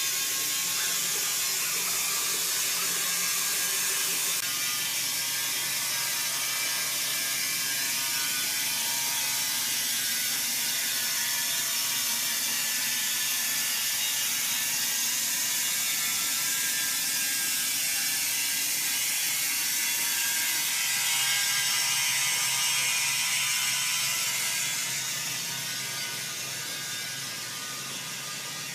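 Steady mechanical rattling of sawmill machinery, its sound weighted toward a high hiss and easing slightly near the end.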